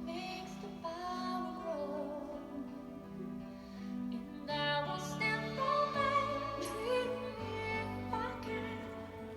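Recorded song playing: a singing voice over a sustained instrumental accompaniment, with the bass notes changing every second or two.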